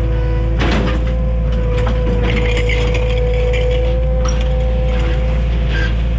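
Takeuchi TL130 compact track loader's diesel engine running steadily under a constant whine, with scattered metallic clanks and rattles.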